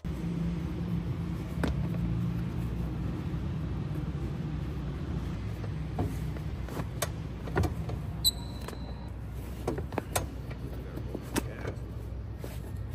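Steady low background rumble with scattered light taps and clicks from a basketball shoe being handled and laced, and one brief high-pitched squeak about eight seconds in.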